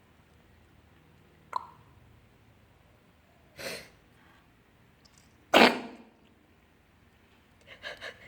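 Domestic cat coughing twice, about two seconds apart, the second cough louder. A single sharp click comes a couple of seconds before the first cough.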